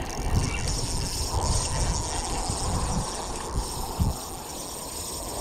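Steady rushing wind and handling noise on the microphone, with low thumps, while a hooked bass is reeled in on a spinning reel.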